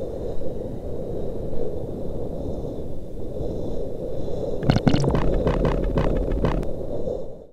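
Logo-reveal sound effect: a steady low rumble, then a quick run of sharp clicks and cracks about five seconds in, cutting off abruptly at the end.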